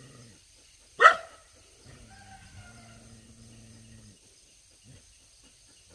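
A dog barks once, loud and sharp, about a second in. A faint low steady drone follows for about two seconds.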